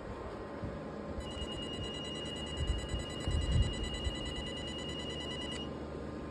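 Soprano Titanium diode laser hair removal machine giving a steady high beep, which starts about a second in and stops near the end, while its handpiece fires: the tone that signals the laser is emitting. A steady whirr from the machine's cooling runs underneath, with a few low handling thuds in the middle.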